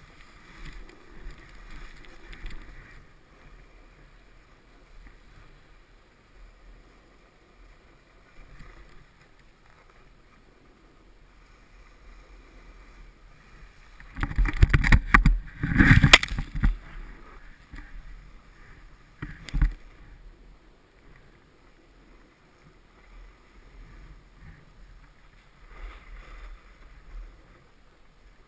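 Snowboard sliding down a groomed run, its base and edges scraping over packed snow with a low rumble. About halfway through comes a loud stretch of harder scraping and knocks lasting a few seconds, then one sharp knock a few seconds later.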